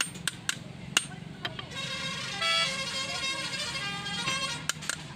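Ball-peen hammer blows riveting lining onto a truck brake shoe against a steel block: several sharp metallic strikes in the first second and a half and a few more near the end. In between, a vehicle horn sounds for about three seconds, its pitch stepping partway through.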